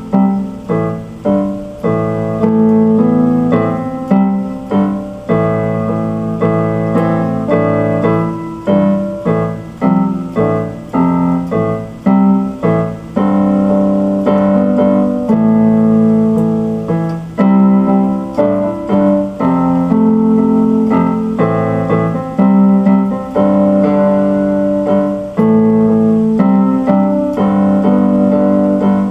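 Instrumental piano music played on an electronic keyboard: chords struck and held, with melody notes over them.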